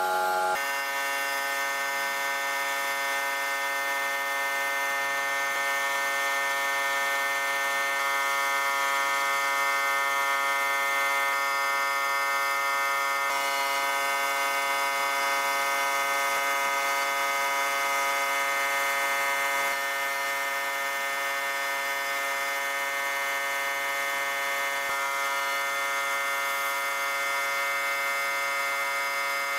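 Sandblasting cabinet's blast gun running continuously against a steel wrench: a steady hiss of air and abrasive with several steady tones in it, shifting slightly about 13 and 20 seconds in.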